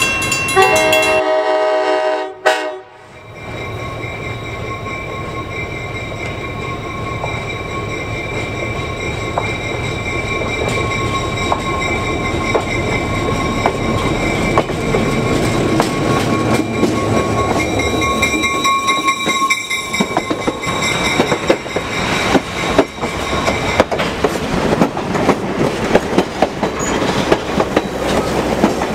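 A train horn sounds in the first couple of seconds and breaks off. Then an EMD MRS-1 diesel locomotive runs toward the listener, its engine sound steadily growing louder. Near the end the passenger cars roll past with rapid clicking of wheels over the rail joints.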